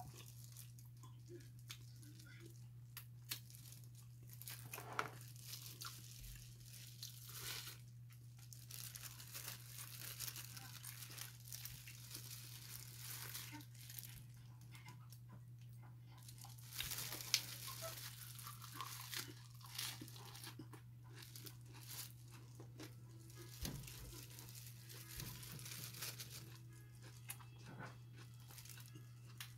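Clear plastic food-service gloves crinkling and rustling as hands mix rice and meat, with crunchy bites of raw vegetables and chewing; a steady low hum runs underneath. The loudest crackles come in a cluster a little past halfway.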